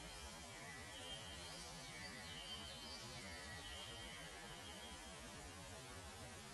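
Faint steady hum and hiss with a series of faint, high held whistled notes in the first five seconds.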